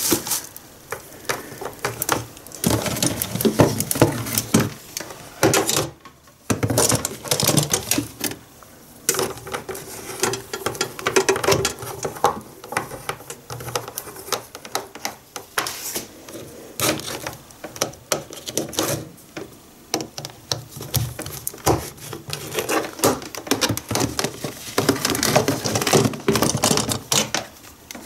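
Irregular clicks, knocks and rustles of objects being handled on a kitchen counter, with a slow cooker's black power cord being pulled out and plugged in.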